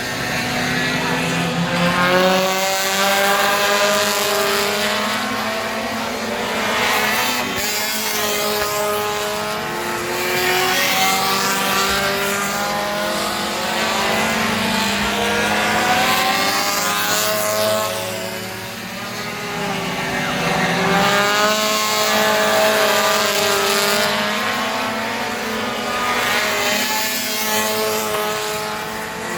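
Pro Compact race cars' four-cylinder engines racing around a short oval track, several engines at once revving up and falling off in waves as they accelerate down the straights and lift for the turns.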